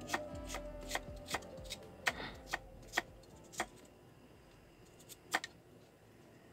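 A Chinese cleaver slicing lotus root into thin rounds, the blade knocking on the cutting board in a steady rhythm of about two and a half cuts a second. The cutting stops about three and a half seconds in, followed by two more knocks about five seconds in.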